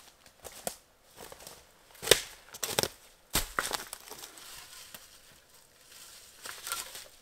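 Footsteps crunching through dry leaf litter and twigs, irregular, with a few sharper snaps; the loudest is about two seconds in.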